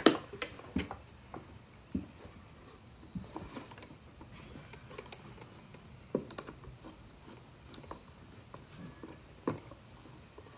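Screwdriver turning the worm screw of a steel band clamp on a plastic mop wringer to take up the last play: scattered light clicks and ticks, the sharpest one at the very start and the rest spread out a second or more apart.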